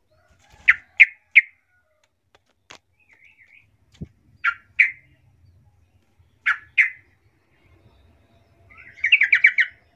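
Yellow-vented bulbul (trucukan) calling: short, sharp chirps in twos and threes, then a quick run of about six notes near the end. A soft knock comes about four seconds in.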